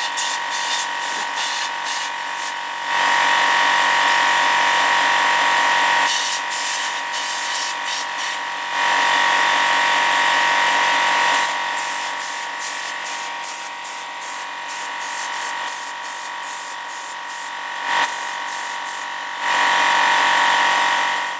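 Small handheld electric power tool running with a steady whine on metal work. Its louder, smoother spells alternate with quieter, rougher spells full of fine scratching, as it is pressed against the work and lifted off. It cuts off abruptly at the end.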